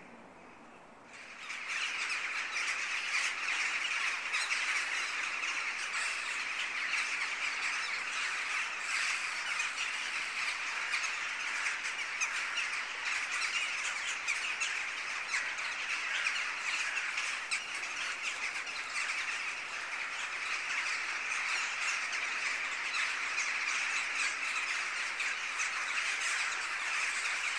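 A large flock of crows calling all at once, a dense, steady din of overlapping caws and squawks that swells up about a second and a half in.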